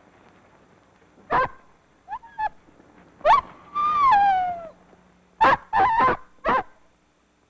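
A dog barking in short yelps, with one long falling whine about four seconds in, then four quick barks in a row.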